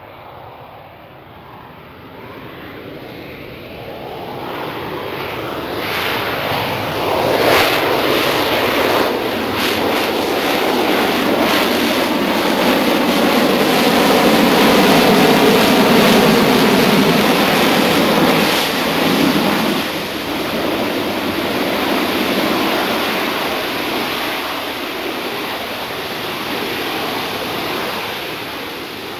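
Jet roar of a Sea Harrier FA2's Rolls-Royce Pegasus turbofan as it flies past in a display. The roar builds from faint as the jet approaches, is loudest about halfway through, then eases off a little.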